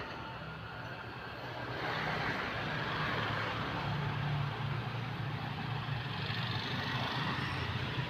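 A vehicle engine running, growing louder about two seconds in and then holding steady.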